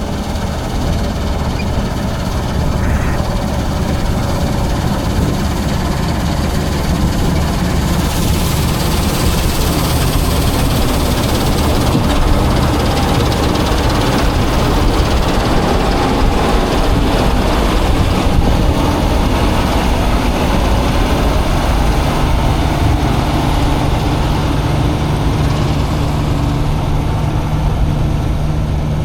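Combine harvester running steadily with a heavy, continuous engine drone.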